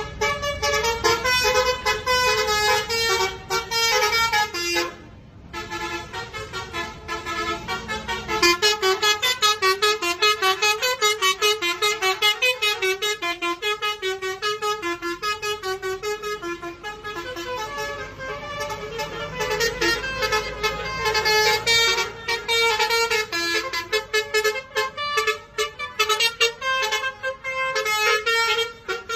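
Indonesian "telolet" multi-tone bus horn playing a fast tune in rapid short notes, with a brief break about five seconds in.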